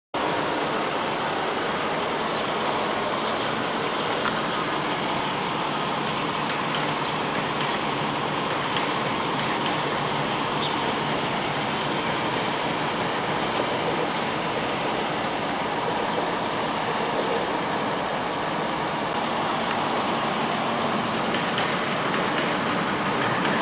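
Steady motor-vehicle noise: an even, unchanging wash of engine and traffic sound with no distinct events.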